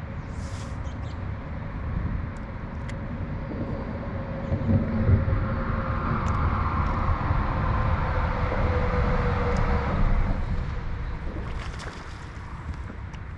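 A boat motor running steadily, a low rumble with a faint held hum that gets louder through the middle and eases off near the end.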